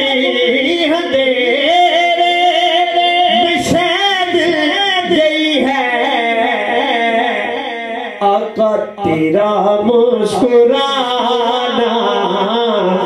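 A man sings a naat (Urdu devotional song in praise of the Prophet) close into a handheld microphone, in long wavering, ornamented notes. There is a short break in the voice about eight seconds in.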